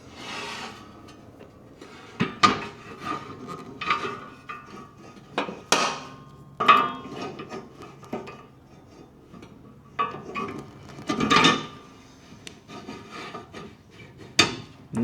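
Steel bushings and spacers being worked into a tube bender's ram mount: scattered metal clinks, scrapes and taps, with a few sharper ringing knocks at irregular moments, the tight fit being pushed home.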